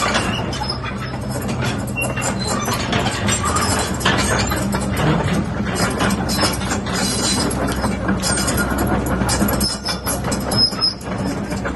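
Hyundai HX140L crawler excavator running, its diesel engine holding a steady hum under irregular metallic clanking and squealing from the moving machine.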